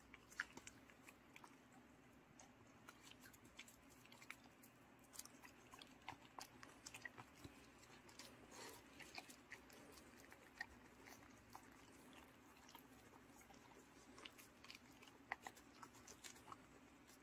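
Faint, irregular clicks and smacks of dogs chewing pieces of steamed sweet potato taken from a hand.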